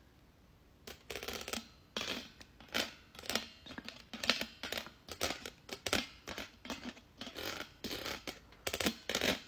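Wire mesh of a wok strainer being scratched and rubbed in quick, irregular strokes, starting about a second in.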